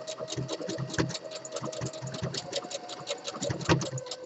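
Brother Project Runway CE1100 computerized sewing machine stitching a wide decorative stitch through fleece: a steady motor whine under a rapid, even clatter of needle strokes, the motor pitch dropping slightly near the end.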